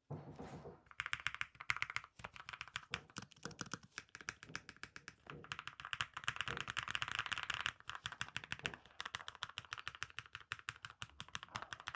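Typing on an IQUNIX MQ80 low-profile aluminium mechanical keyboard with gold red switches and PBT keycaps. Rapid, continuous keystrokes begin about a second in and run on as a dense patter of clacks.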